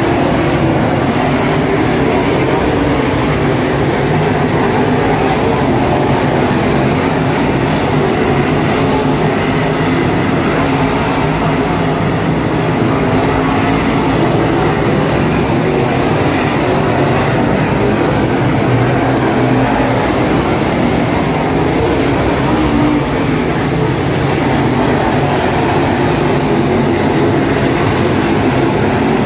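A field of dirt super late model race cars running at racing speed around the oval, their V8 engines making a loud, continuous engine noise that holds steady throughout.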